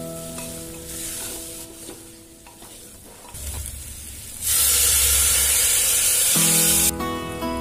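A wooden spatula stirs baby potatoes frying in spiced oil in a pressure cooker. About four and a half seconds in, hot water poured onto the hot masala sets off a loud sizzle for about two seconds. Guitar music comes back near the end.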